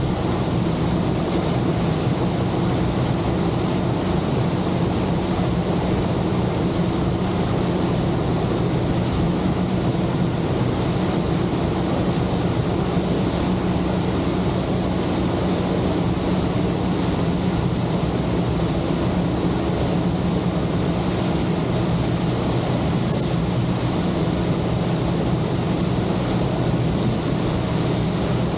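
Honda outboard motor running at a steady speed with the boat underway, over a steady rush of water along the hull.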